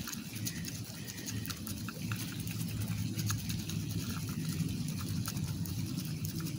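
A plastic lottery scratcher tool scraping the coating off a paper scratch-off ticket: a continuous run of quick, small rasping scrapes over a steady low hum.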